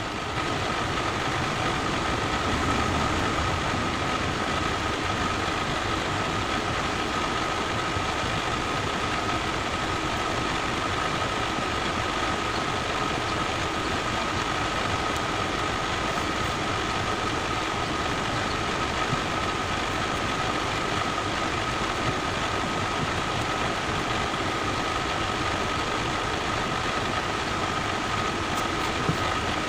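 A steady machine drone like an idling engine, with a constant high whine running through it at an even level.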